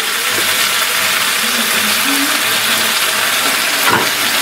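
Meat, chorizo and freshly added cheese sizzling steadily on hot metal planchita trays, with a light knock about four seconds in.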